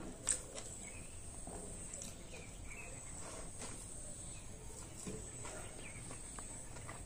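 Close-up eating sounds: chewing and small wet mouth clicks and smacks, with one sharp click a fraction of a second in.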